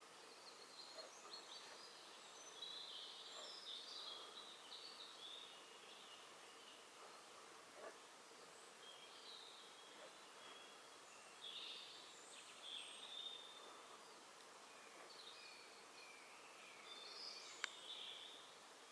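Faint songbird phrases, short and high, heard several times over a low steady hiss, with one sharp click near the end.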